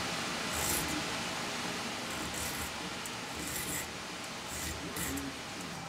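A 7-inch triangular hand file sharpening the teeth of a Silky Sugoi pull-saw blade clamped in a bench vise: a few short rasping file strokes, a second or more apart.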